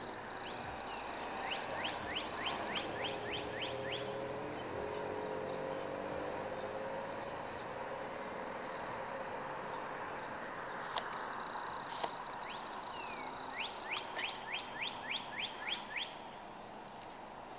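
A small songbird singing two phrases of about a dozen quick notes each, roughly five a second, one early and one near the end, over a steady outdoor hiss. Two sharp clicks come around the middle, and a faint low drone rises and falls in between.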